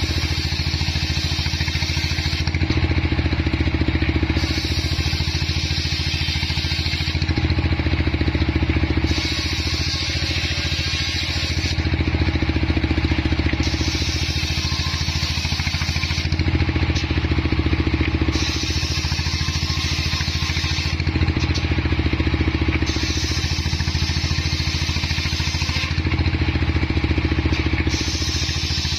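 Homemade bench circular saw, driven by its engine, running steadily while its blade rips a slab of johar (Siamese cassia) wood into boards. The engine hums under the cutting, and a hissing cut of about two seconds comes again every four to five seconds as each pass goes through the wood.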